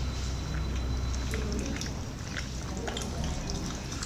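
Close-miked chewing of braised pork: soft, wet mouth clicks and smacks scattered irregularly over a steady low hum.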